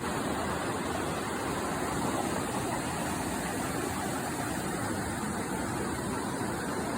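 Steady rushing of a clear mountain river flowing over rocks.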